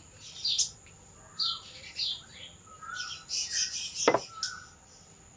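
Small birds chirping, a string of short high chirps and brief whistles every half second or so. About four seconds in comes a single sharp knock, the loudest sound.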